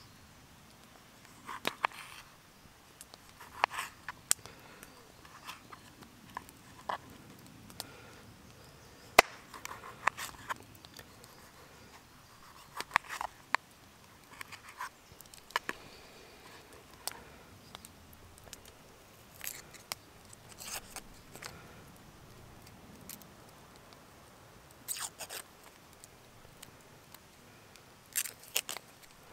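Small folding knife slicing cherry tomatoes on a wooden plate: irregular short, sharp clicks and snips as the blade cuts through and taps the wood, one every second or two. Near the end the knife cuts into a red onion.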